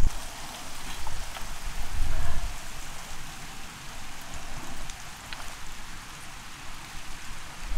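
Wind gusting on the microphone, with low rumbles about one and two seconds in, over a steady rain-like outdoor hiss and a few faint clicks.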